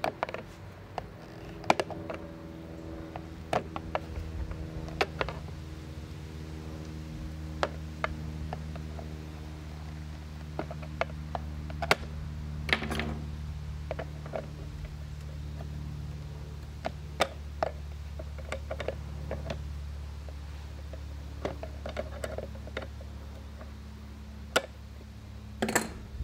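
A screwdriver and then pliers clicking and scraping on the push-on spring washer that holds a Power Wheels wheel on its steel axle, as the washer is pried off; scattered sharp clicks, with a louder cluster near the end, over a steady low hum.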